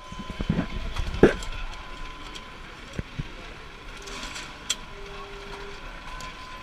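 Factory assembly-line background: a steady machine hum with a faint steady tone, a few sharp clicks and knocks from parts being handled, and voices in the first second or so.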